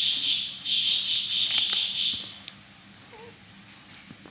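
High-pitched insect trilling, in bouts that fade out about halfway through, with a thinner steady high tone near the end. A few faint crinkles of the plastic bag.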